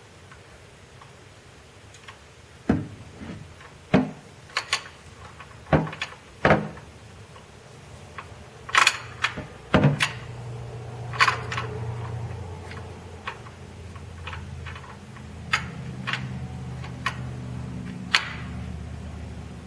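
Hand tools clicking and clanking against each other and against metal, a string of separate sharp knocks at uneven intervals. A low steady rumble comes in about halfway through and carries on under the clicks.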